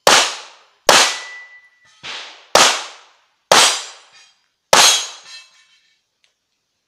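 Pistol shots fired during a practical-shooting stage: six sharp reports at uneven intervals of about a second, each dying away quickly, the third weaker than the rest.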